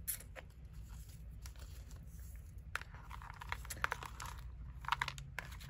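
Paper stickers and die-cut cut-outs rustling and crinkling as hands rummage through them in a plastic tub, in short irregular bursts that get busier about three seconds in.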